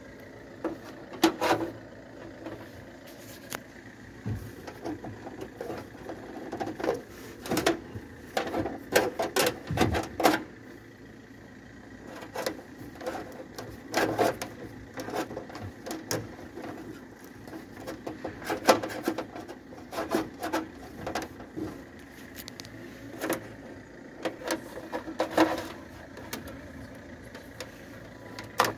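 Scattered taps, knocks and rustles of a thin cable being fed by hand through holes in a van's sheet-metal body panels, coming in irregular clusters.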